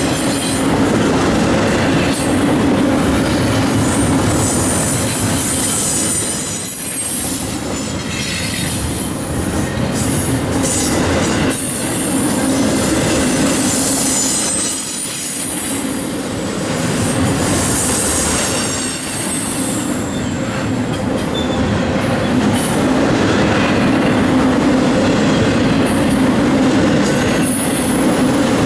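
A train's cars rolling past steadily on the rails, with a high wheel squeal over the rumble and clickety-clack of the wheels.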